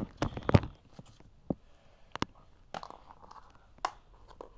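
A quick cluster of sharp clicks and knocks, then single sharp taps every half second to a second, like small hard objects or a handheld camera being handled.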